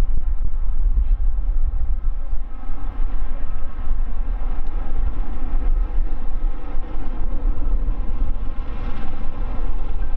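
Boeing 777 Freighter's twin GE90 turbofan engines at takeoff thrust as the jet lifts off and climbs away. A loud, steady, deep rumble with a thin hum of engine tones above it.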